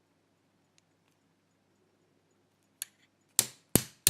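Padlock being forced shut: a light click, then about three sharp knocks in quick succession near the end as force is put on the bent shackle.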